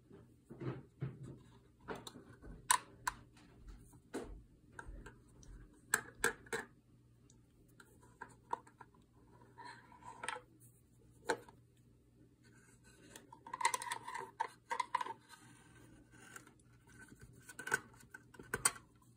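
Hands handling a small plastic magic-trick box: irregular clicks, taps and light scrapes of the plastic parts, a metal washer and a cord being threaded through and pulled out, busiest in two spells in the second half.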